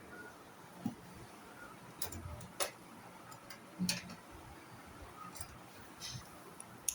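A few faint, scattered light clicks and taps, about a second or so apart, over quiet room tone.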